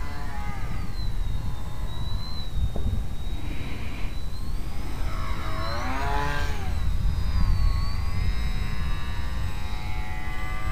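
Model aerobatic plane (Zivko Edge) motor and propeller during 3D flying, the note rising and falling as the throttle changes. About six seconds in, the plane passes close and the pitch sweeps up and then down.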